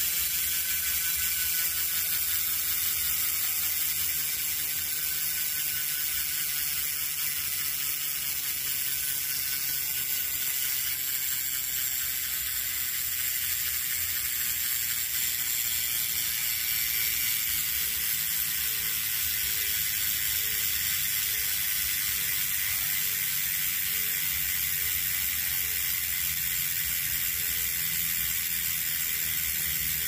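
Bicycle rear freehub ratcheting as the wheel spins freely, the pawls clicking in a fast buzz that slowly drops in pitch as the wheel slows.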